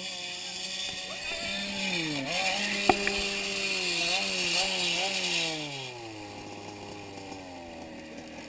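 Small dirt bike engine revving up and down unevenly, with one sharp crack about three seconds in as the bike crashes, then settling to a steady low idle while the bike lies on its side.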